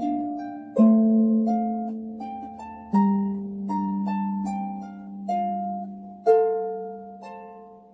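Harp played by hand: a slow melody of plucked notes over low bass notes, each note ringing and fading. Fuller chords are struck about one, three and six seconds in.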